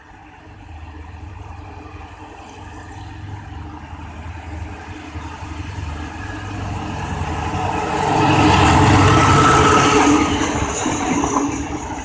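Two State Railway of Thailand diesel locomotives, GEA 4559 and the MTU-engined Alsthom 4106, running through. Their engines and wheels grow steadily louder as they approach, are loudest for about two seconds as they pass close about eight seconds in, then begin to fade.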